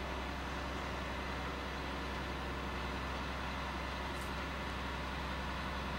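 Vibratory pile hammer, driven by a hydraulic power pack, running steadily as it drives a steel tubular caisson into soft ground.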